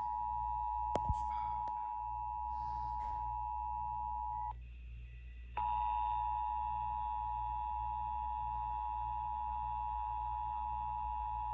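Emergency Alert System attention signal: the steady two-tone alert (853 and 960 Hz) aired on a radio station for a Required Monthly Test. It cuts out for about a second a little before halfway through, then resumes, with a couple of sharp clicks about a second in.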